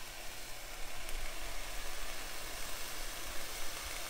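Ground beef sizzling steadily in a skillet over medium-high heat.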